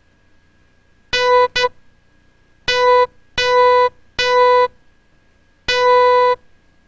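Morse code sent as a steady electronic beep tone: a dah and a dit about a second in, then after a pause three dahs, then after another pause one longer dah. These are letter groups of a practice word to be decoded by ear.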